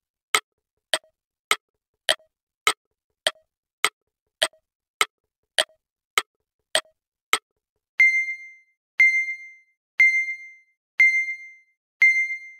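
Quiz countdown timer sound effect: a clock-like ticking, a little under twice a second, then from about eight seconds in five high beeps one second apart, marking the thinking time running out.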